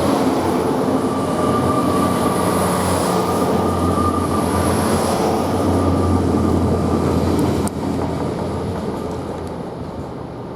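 Great Western Railway Class 800 bi-mode train pulling away from the platform: a steady low engine drone with a whine above it. It drops suddenly a little under eight seconds in, then fades.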